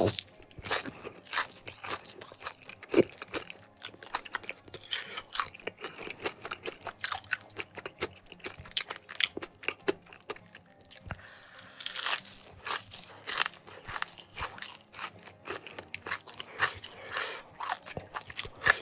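Close-up biting and chewing of crispy battered fried chicken skin: a dense, irregular run of sharp crunches.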